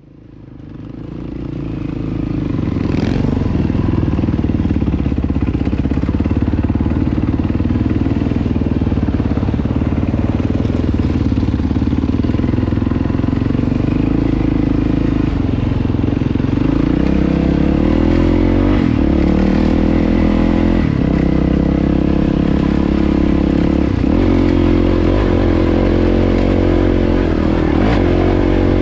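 Yamaha WR450F dirt bike's single-cylinder four-stroke engine running as the bike rides along a dirt track, heard from on the bike. It fades in over the first couple of seconds, holds a steady note, then from about halfway its pitch steps up and down repeatedly with throttle and gear changes.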